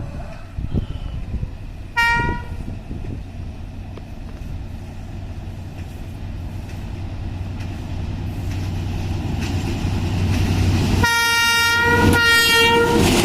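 A train horn gives a short blast about two seconds in. A train's low rumble then grows steadily louder, and near the end a horn sounds two longer blasts, lower in pitch, one right after the other.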